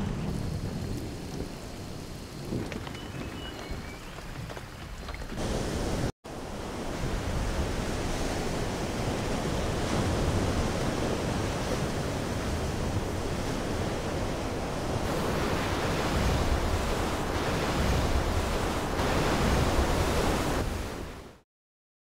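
Storm ambience. For the first six seconds there is quieter wind and rain with a few faint chirps. After a sudden cut comes a loud, steady rush of wind and breaking surf, which fades out near the end.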